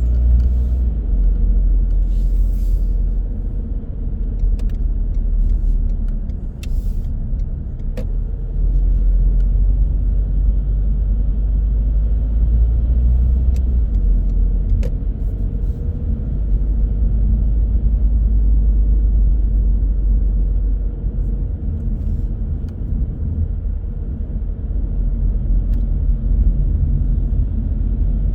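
A car driving, heard as a steady low rumble of road and engine noise that swells and eases slowly, with a few faint sharp clicks.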